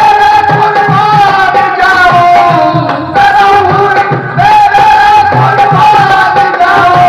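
Live qawwali: male voices singing long, held, ornamented notes, accompanied by harmonium and a dholak barrel drum beating a rhythm.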